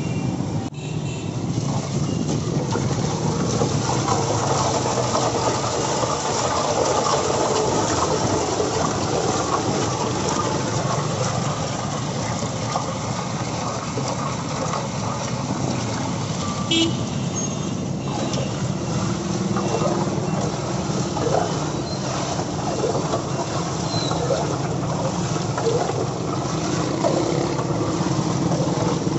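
Steady din of busy street traffic: engines and motorcycles running.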